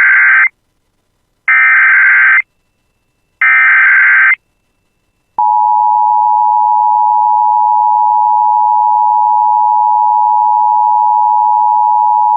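Emergency Alert System signal: the SAME header's buzzy digital data bursts, the end of one and two more, each about a second long with a second's gap, then the steady two-tone EAS attention signal starting about five seconds in. The header and tone announce a broadcast tornado warning.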